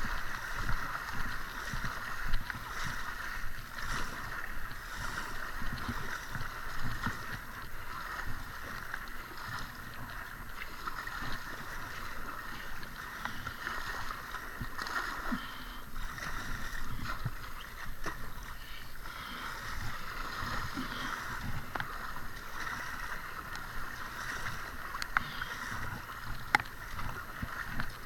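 Double-bladed kayak paddle strokes dipping and splashing in the river, with water sloshing around an inflatable kayak's hull, in uneven repeated pulses.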